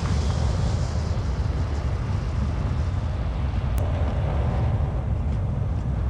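An SUV driving, with a steady, loud, low rumble of road and engine noise and wind noise on the microphone.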